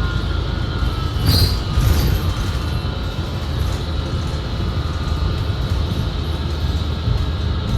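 Cabin noise of a 2019 New Flyer XD60 articulated bus under way: a steady low running rumble with a thin steady whine, the odd transmission sound that mostly covers the engine on this bus. A brief rattle cuts in about a second and a half in.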